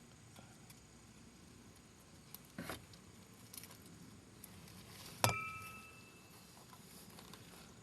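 Faint handling noises: a few soft knocks, then about five seconds in a single sharp metallic clink that rings briefly before dying away.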